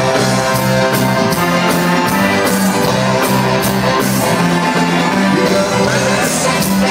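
Live ska band playing loud, with sustained instrument notes over a steady drumbeat and cymbal hits.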